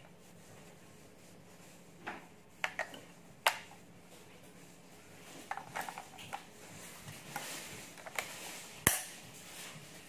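Scattered sharp plastic clicks and knocks from a Dymo handheld label maker being handled and turned over after its batteries are loaded, with the sharpest click shortly before the end.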